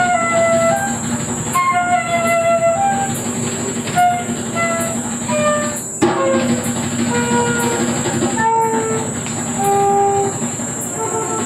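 Concert flute playing a melody in short, stepping phrases over a steady low drone.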